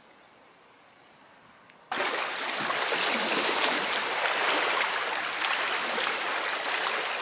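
Faint for about two seconds, then, from a sudden cut, a steady rush of water washing over the rocks of a stony shoreline, with many small splashes.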